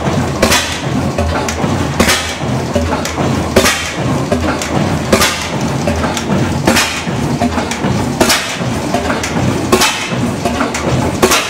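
Reid 15 hp oilfield engine running, with a sharp loud crack about every one and a half seconds and lighter clicks and knocks between them, settled at running temperature after rework of its gas and water systems.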